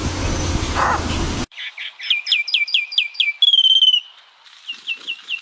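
A loud, steady noise cuts off about a second and a half in, and a songbird sings: a quick run of short downward-sliding chirps, about four a second, then a held whistle that drops slightly in pitch, then more short chirps.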